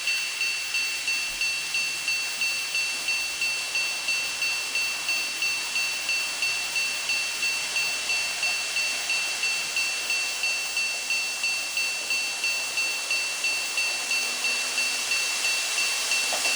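Level-crossing alarm on a model railway layout: a high electronic bell tone struck evenly about twice a second without pause, in the 'kan-kan' style of Japanese crossings.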